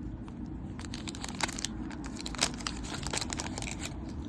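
Waxed-paper wrapper of a 1988 Fleer baseball card wax pack being torn open and crinkled by hand: an irregular run of small rips and crackles.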